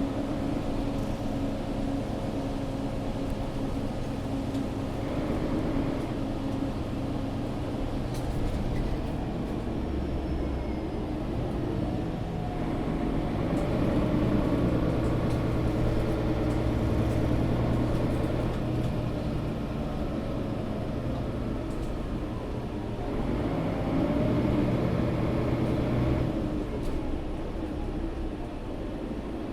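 Mercedes-Benz O530 Citaro G articulated bus heard from inside the passenger cabin: engine and road noise running steadily, growing louder twice under load, about halfway through and again near the end.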